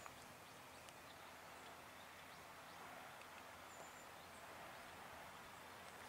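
Near silence: faint outdoor ambience, with one brief, faint high chirp about four seconds in.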